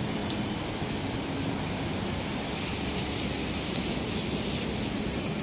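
Rainy city street ambience: a steady hiss of rain and traffic on wet pavement, with a faint low hum of vehicles underneath.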